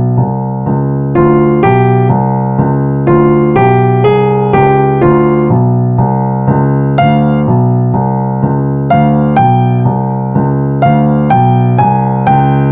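Yamaha grand piano played solo: low bass notes held steadily underneath a repeating pattern of higher notes struck a couple of times a second.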